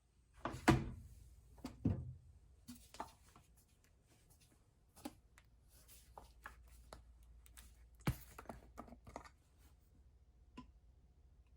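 Irregular handling noises: scattered knocks, clicks and rustling of objects being moved about, with the loudest knocks under a second in and again about eight seconds in.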